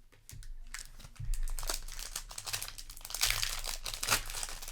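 Cardboard booster display box being folded and pressed into place by hand, giving irregular crinkling and rustling that grows louder about a second in, with the loudest crinkles in the last second or two.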